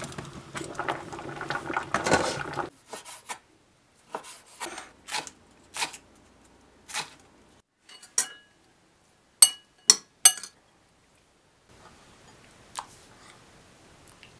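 Bone broth bubbling at the boil in a pot as dumplings go in, for the first couple of seconds. Then comes a scattering of light kitchen taps and clinks of dishes and utensils, ending with three quick, sharp, ringing clinks.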